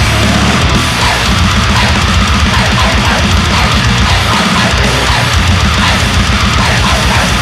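Grindcore: heavily distorted guitars and bass over fast, dense drumming, loud and unbroken.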